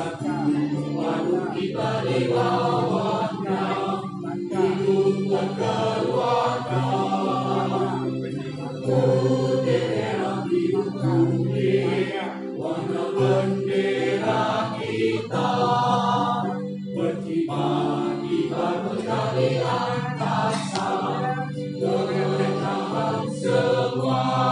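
Music with a choir singing over a steady instrumental backing.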